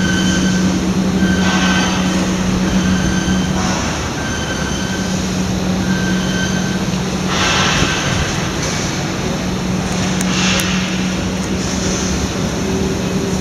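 EFKP-1500 foam splitting machine running with a steady mechanical hum and rattle while slicing sheets of EVA/PE foam, with a few brief swells of hiss.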